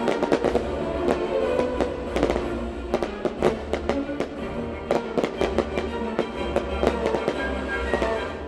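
Fireworks shells and crackling effects bursting in quick succession, many sharp bangs and cracks, heavier from about three seconds in, over orchestral music from the pyromusical show's sound system.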